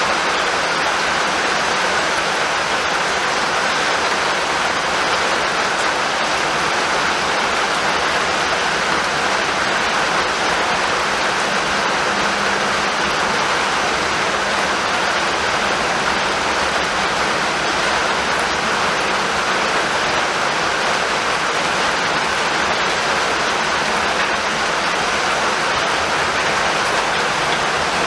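Steady rainfall, an even, unbroken hiss with no thunder.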